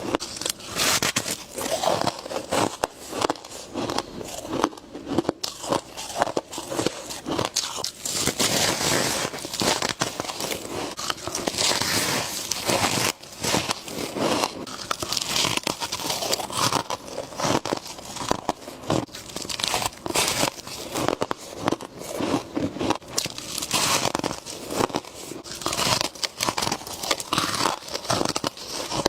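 Freezer frost being bitten and chewed: a continuous stream of dense crackling crunches, with brief pauses between bites.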